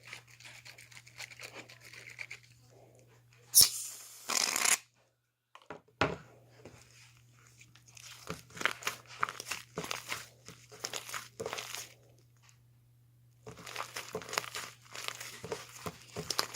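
Close-up handling noises of crinkling and rustling material, with a louder tearing or ripping burst about three and a half seconds in, over a steady low electrical hum.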